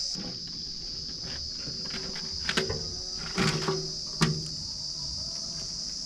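Steady high-pitched chorus of insects chirring. A few short, louder knocks of wood come about two and a half to four seconds in, as the old roof timbers are handled.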